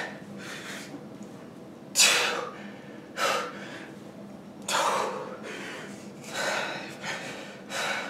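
A man breathing hard and gasping while doing push-ups, with one sharp breath roughly every second and a half in time with the reps. It is the heavy breathing of exertion near the end of a long set of about fifty.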